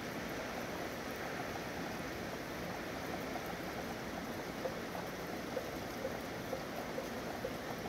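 Steady city rain falling, an even wash of noise. In the second half, faint short taps come about once a second.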